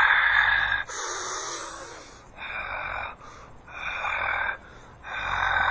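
A person making raspy, wheezing breath noises with the voice, in about five drawn-out pulses with short pauses between them.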